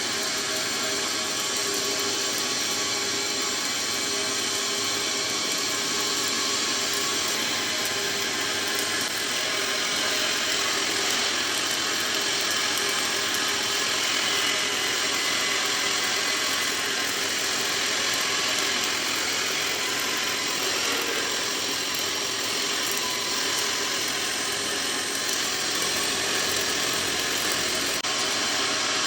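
Welding arc crackling and hissing steadily while a capping pass is run uphill (vertical-up).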